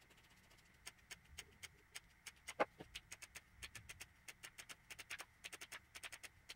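Tin snips cutting washers out of a rubber sheet by hand: faint, irregular snipping clicks that come faster toward the end, with one louder click about two and a half seconds in.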